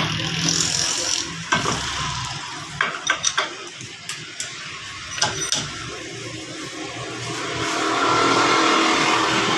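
Scattered sharp metallic clanks and knocks, like tools and parts being handled on a car, over steady background noise, then a broad rushing noise swells up near the end, as of a vehicle.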